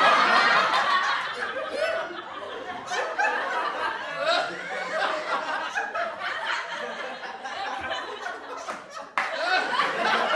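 A group of people laughing and chuckling together, several voices overlapping with some chatter mixed in. About nine seconds in, the sound cuts abruptly to a louder burst of laughter.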